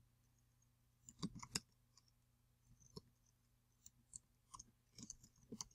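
Faint, irregular keystrokes on a computer keyboard as a short terminal command is typed. A few come together about a second in, then single clicks, then quicker ones near the end.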